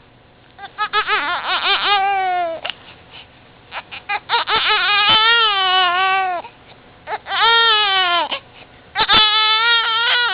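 Young infant, about two months old, with the hiccups, crying in four bouts, each cry falling in pitch as it breaks off, with short sharp catches between the bouts.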